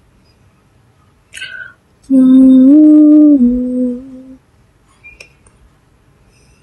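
A woman humming a short three-note phrase for about two seconds, the second note higher and the third lower than the first.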